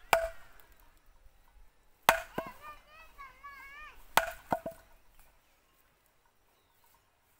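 Short log slammed down onto upright wooden stakes in a chopping block: three sharp wooden knocks about two seconds apart, the third followed by a quick second knock.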